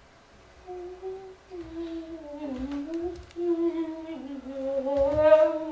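A voice humming a slow, wordless melody in held notes that glide down and up, swelling louder near the end. A few dull low thumps are heard under it.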